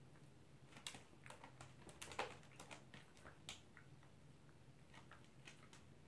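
A toy poodle moving about in its crate toward its food bowl: faint, scattered light clicks and taps, most of them in the first few seconds and fewer near the end.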